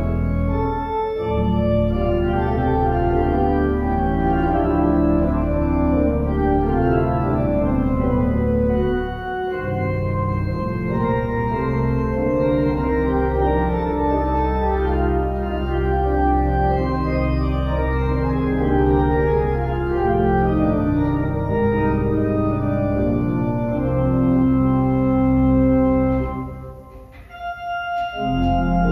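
Church organ playing a hymn prelude: sustained chords over a deep pedal bass. Near the end the music stops, the last chord dies away in the room, and the playing starts again.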